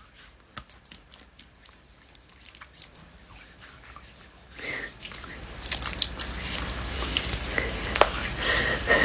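Sticky, wet crackling and squelching of special-effects makeup being peeled off skin soaked in adhesive remover. It starts as faint scattered clicks and grows louder and denser from about halfway.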